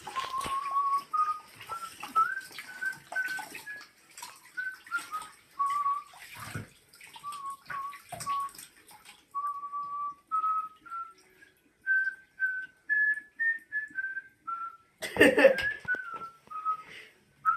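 A person whistling a slow tune, one clear note at a time stepping up and down, while water splashes in a bathtub now and then, loudest near the end.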